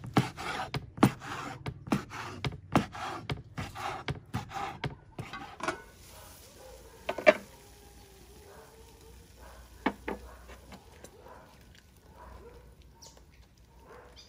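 Knife cutting fish roe on a wooden chopping board: a run of sharp knocks, one or two a second, for about six seconds. Then quieter, with two single sharp knocks.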